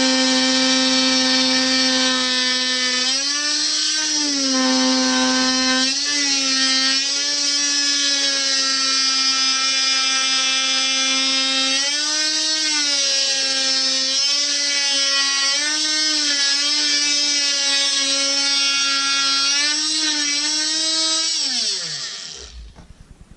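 DeWalt DWE315 oscillating multi-tool running under load as its blade undercuts a wooden door casing, a steady high buzz. Its pitch wavers briefly several times as the blade works through the cut. Near the end the motor is switched off and winds down to a stop.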